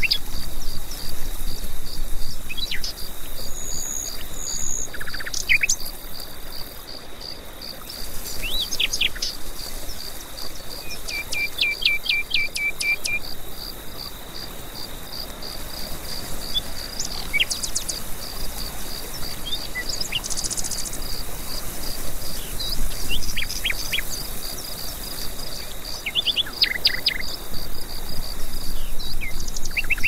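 Woodland birds calling and singing, with short sliding whistles and a quick trill of repeated notes about a third of the way in, over an insect's steady, evenly repeated chirping.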